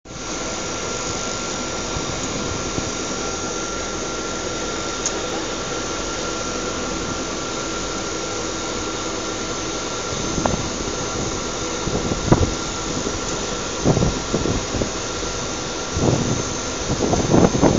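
Industrial drying plant machinery running steadily: a continuous roar with a faint high whine. From about ten seconds in, irregular clanks and knocks join it, growing busier near the end.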